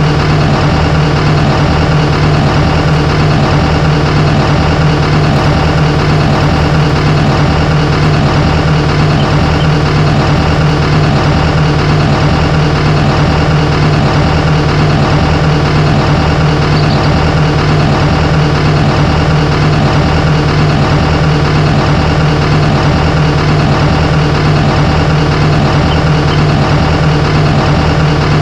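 Heavy diesel engine running steadily with a strong low hum and an even pulsing beat, no change in speed.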